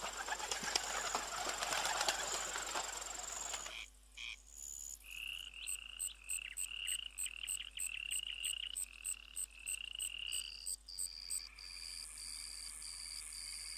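A noisy rustle with clicks for about the first four seconds, then a run of short, high chirping animal calls, about three a second, which near the end give way to a steadier high pulsing trill.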